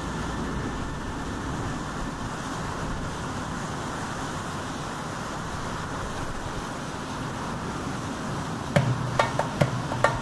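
Steady roar of large storm waves breaking along the shore and breakwater, mixed with wind. About nine seconds in, plucked-string music starts over it with sharp, loud notes.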